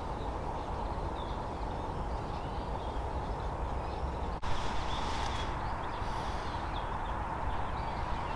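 Woodland ambience: a steady background hiss with faint, scattered bird chirps.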